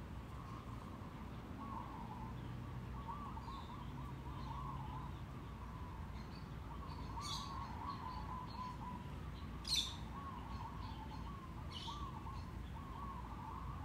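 Birds chirping: a warbling call repeated over and over, with a few short, high chirps, the sharpest and loudest about ten seconds in.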